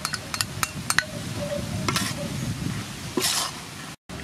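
Metal spatula clinking and scraping against a steel wok as squid and leek stir-fry with a light sizzle: a run of sharp clicks in the first second or so, and a longer scrape about three seconds in.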